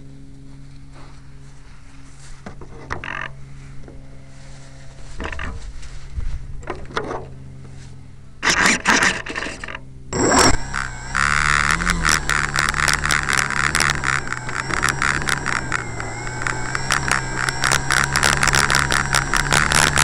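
Electric motor and propeller of an E-flite Pitts model biplane, heard from a camera on board. At first only a faint steady hum and a few knocks. The motor spins up in two short bursts after about eight seconds, then runs loud and steady from about eleven seconds for the takeoff run over grass, with a rapid rattle of the airframe.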